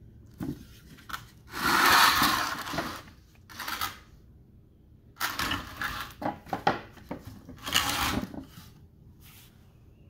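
Several bursts of scraping and rubbing noise, each up to about a second and a half long, with a few light knocks, as a wooden mortar rack holding HDPE tubes is handled; the loudest burst comes about two seconds in.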